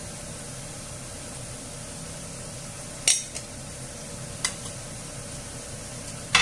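Diced red pepper and garlic sizzling steadily in oil in a frying pan, with a few sharp clicks: a loud one about three seconds in, two fainter ones after it, and another loud one at the end.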